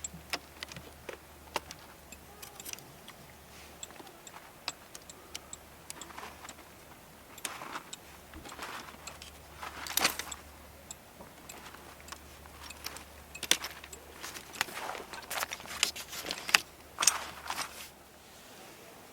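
Camping gear being handled: irregular clicks, clinks and light knocks with some rustling, busier in the second half.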